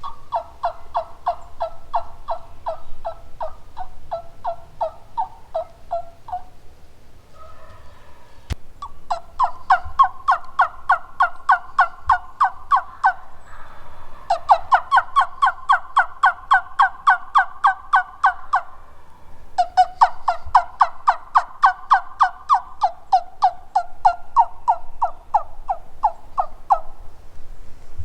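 Turkey yelping: four long runs of evenly spaced yelps, each run lasting several seconds, with short pauses between runs.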